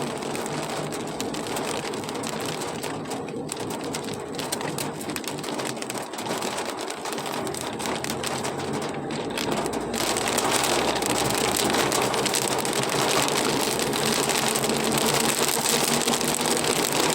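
Rain falling steadily, a constant hiss that grows louder about ten seconds in.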